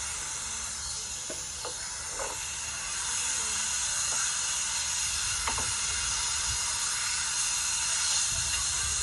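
Marinated meat sizzling on a hot Korean barbecue tabletop grill: a steady, dense hiss that grows louder about three seconds in, with a few light clicks as it is handled.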